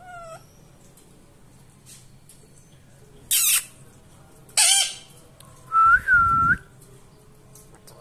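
Indian ringneck parakeet calling: a short rising whistle at the start, two loud harsh screeches a little over a second apart in the middle, then a clear two-part whistle that dips and rises.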